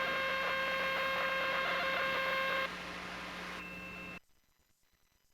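Steady electrical hum and hiss on the Emergency Alert System test's audio feed, holding several fixed tones. It drops in level about two and a half seconds in and cuts out to near silence about four seconds in.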